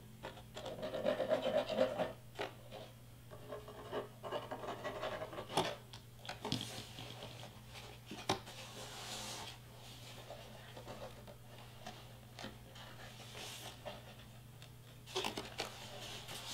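Hands rubbing, pressing and sliding glued cardstock pieces together, a soft irregular paper scraping and rustling, with a couple of sharp taps partway through.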